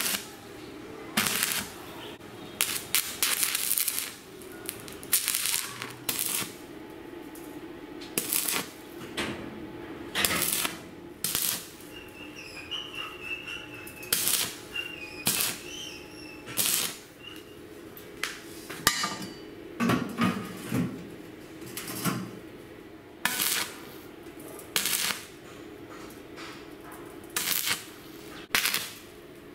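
Stick (shielded metal arc) welding on steel: a string of short tack welds, each arc striking with a brief crackle and sizzle, about twenty in all and unevenly spaced, over a faint steady low hum.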